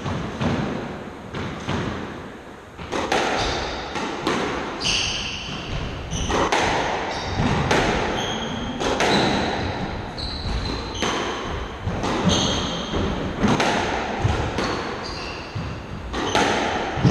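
Squash rally: the ball cracks off the rackets and smacks the front and side walls, each hit echoing in the enclosed court, with short shoe squeaks on the wooden floor between shots.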